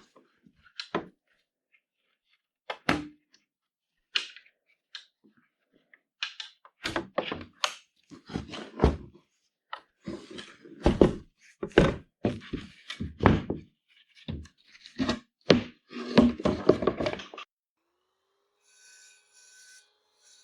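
Irregular knocks and thunks of tools and wood being handled on a workbench. They come a few at a time at first, then in quick busy clusters, and stop a few seconds before the end.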